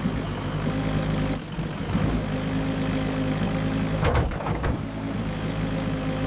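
Tractor engine running steadily at low revs, with a couple of brief rattles about two and four seconds in.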